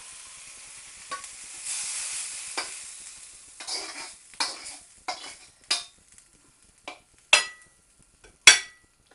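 Chicken and vegetables sizzling in a wok, the sizzle fading after about three seconds. Then a utensil scrapes and knocks against the wok about ten times, ending with a loud metallic clang that rings briefly.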